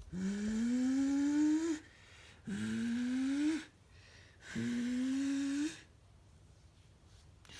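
A person imitating a bus engine with their voice, three rising "vroom" sounds, each climbing in pitch like an engine revving up through a gear, with short breaths between them.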